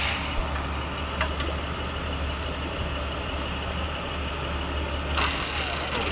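Jeep Cherokee engine idling steadily, with a few light clicks and a brief louder rattling noise about five seconds in.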